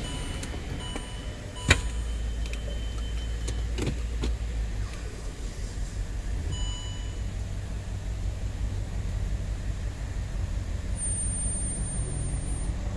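Land Rover LR3's 4.4-litre V8 engine running, still not running well with its misfire. There is a sharp click about two seconds in, and a few short high tones in the first few seconds.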